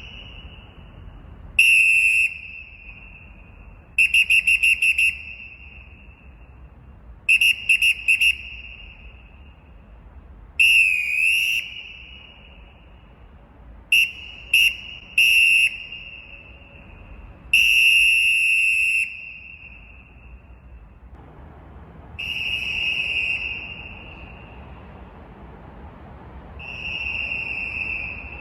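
Acme Thunderer 559 pea whistle blown as a series of referee signals: long blasts, quick repeated short toots, a fast trill and one blast whose pitch dips and recovers, all at a shrill high pitch. The last two blasts are softer.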